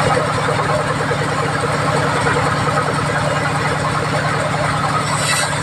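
Band sawmill machinery running steadily, with an even, low pulsing drone. A brief hiss comes near the end.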